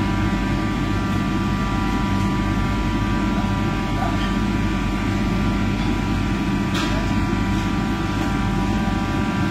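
Commercial kitchen exhaust hood and ventilation fans running, a steady mechanical drone with several fixed humming tones. A faint knock of utensils about seven seconds in.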